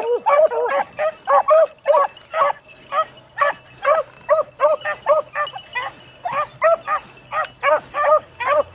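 Beagles baying as they run a rabbit's track, in a steady string of short, ringing barks about three to four a second. The calls crowd and overlap near the start.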